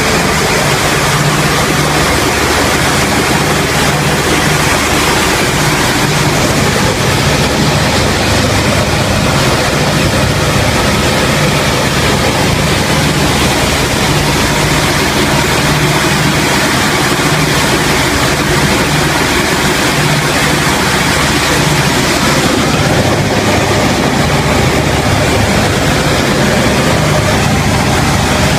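Piston engine and propeller of a World War II-era aircraft droning steadily in flight, heard loud from inside the cabin under a heavy rush of airflow.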